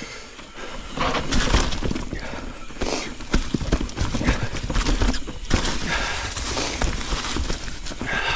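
Mountain bike riding down a rocky, leaf-covered trail: tyres rolling over rock and dry leaves, with irregular knocks and rattles as the bike hits bumps, and wind rumbling on the handlebar-mounted camera's microphone.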